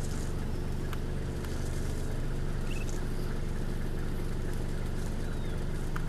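Vehicle engine idling steadily, a low even hum.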